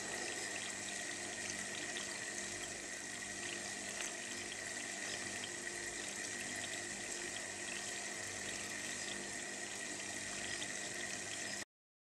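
Steady hiss of running water with a thin, steady high whine, cutting off suddenly near the end.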